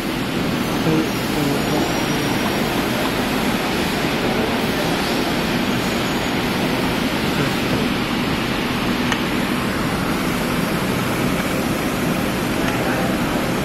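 Hot air rework gun blowing steadily, a constant rushing hiss with a faint low hum underneath, as it heats the solder pads of a surface-mount LED being replaced on an LED display module.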